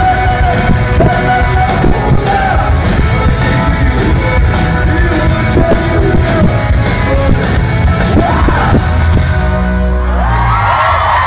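Upbeat commercial music track with singing. About ten seconds in the bass drops out and a few bright held notes take over.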